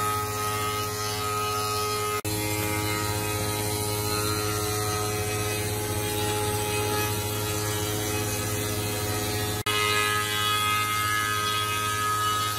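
Spindle moulder (shaper) running and cutting the edge of a board as a roller power feeder drives it past the cutter. It is a steady, loud machine noise with a constant hum, broken for an instant twice, about two and ten seconds in.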